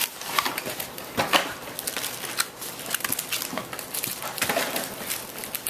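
Foil-wrapped trading-card packs and their cardboard box being handled, crinkling and crackling with irregular sharp clicks and light taps.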